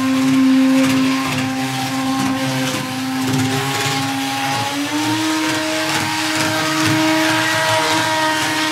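Electric motor and gear train of a TT-scale MTB class 842 railcar model running at speed on the track: a loud, steady whine over a rattly rushing noise, stepping up slightly in pitch about halfway through. The modeller judges this noisy drive terrible.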